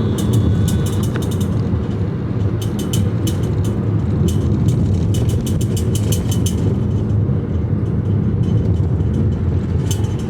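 Car cabin road and engine noise, a steady low rumble while driving, with scattered faint clicks.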